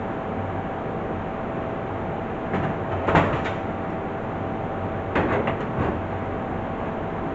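Steady machine hum with a faint tone, with a few short knocks and rattles: a cluster about three seconds in and another about five to six seconds in.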